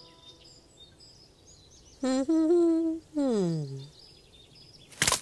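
A cartoon character's voice humming: a short note, a held note, then a long falling "mmm", over faint birdsong. A sharp clack comes near the end.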